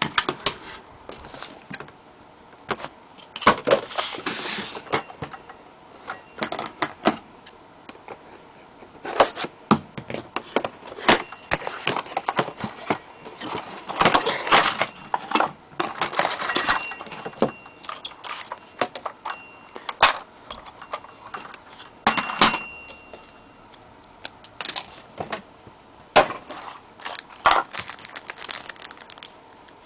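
Plastic toy-train parts and their packaging being handled: irregular clicks, taps and short rustles, some in quick runs.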